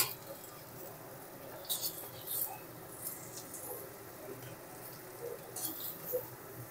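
Spatula scraping and clicking against a kadai as fried jackfruit pieces are lifted out of the oil: a few short, sharp scrapes spread over several seconds, with a loud click at the start.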